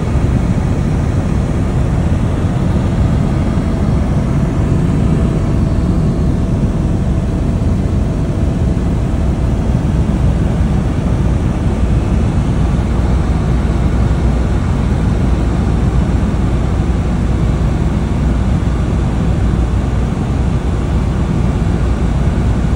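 Helicopter engine and rotor noise heard inside the cabin in flight: a loud, steady drone, strongest in the low end.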